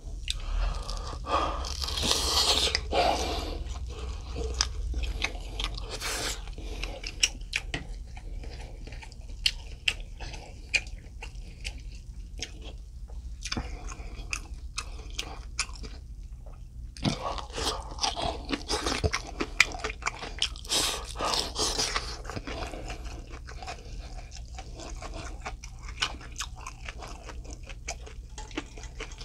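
Close-miked chewing of grilled mackerel, wet and smacking, with many short clicks. The chewing is denser and louder just after the start and again a little past the middle.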